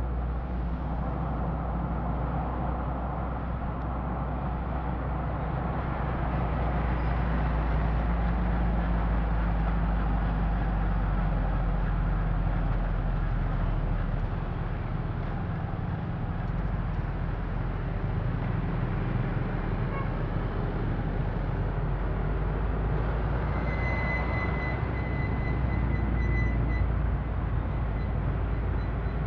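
Steady low rumble of engine and road noise from a vehicle driving through city traffic with motorcycles around it. A thin, high steady tone sounds for about three seconds near the end.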